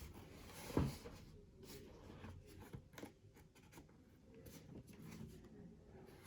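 A cardboard shoebox and its packaging being handled: scattered rustles, scrapes and light taps, with one louder knock about a second in.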